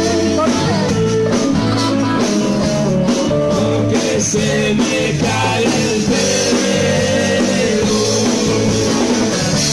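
Live rock band playing loudly: electric guitar and drum kit.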